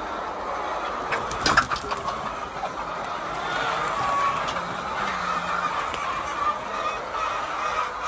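A large flock of laying hens clucking and chattering all together in a dense, steady din of overlapping calls. A few sharp knocks break through about a second and a half in.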